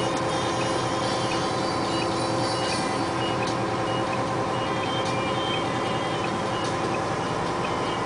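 Dump truck's diesel engine running steadily while the truck reverses, with a back-up alarm giving short repeated beeps.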